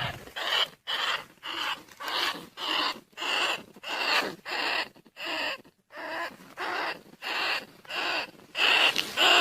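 Recorded rat squeals used as a rat-trapping lure call: short harsh squeaks repeating about twice a second, a little louder near the end.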